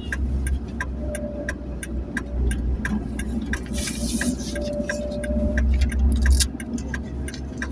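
Ambulance running on the road with a steady low rumble, over which an even ticking about three times a second keeps time, like a turn-signal indicator. A brief hiss comes about four seconds in.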